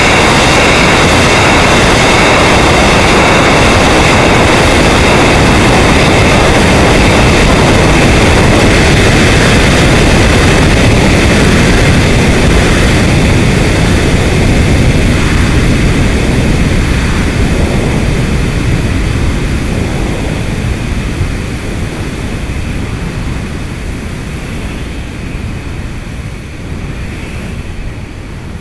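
Loud, steady rushing roar recorded aboard the Armadillo Aerospace Stiga rocket in high-altitude flight, with a few thin steady high tones in it. About halfway through it starts to fade gradually, ending much quieter.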